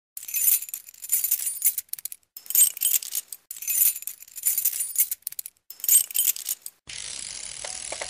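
Intro soundtrack of high, bright metallic percussion in repeated bursts about a second long with short gaps. About seven seconds in it switches to a steady, quieter hiss with faint short tones.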